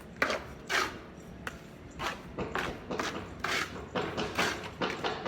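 Repeated short scraping strokes of a trowel working cement plaster onto a wall, about two a second.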